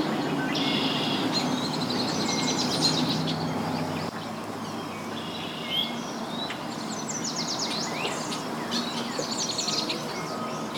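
Several birds chirping and trilling in quick repeated series over steady outdoor background noise, with a low steady hum that stops about four seconds in.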